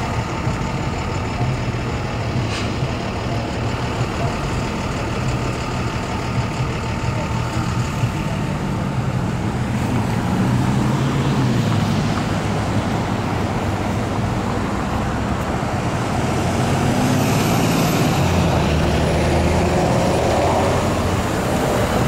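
Road traffic at a signalled intersection: car and truck engines running and passing, somewhat louder from about halfway through.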